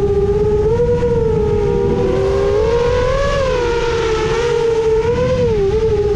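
Motor and propeller whine of a 7-inch FPV quadcopter (Emax Eco II 2806.5 motors, HQ 7x3.5x3 three-blade props) in fast flight. The pitch rises and dips with the throttle, heard over a low rushing noise.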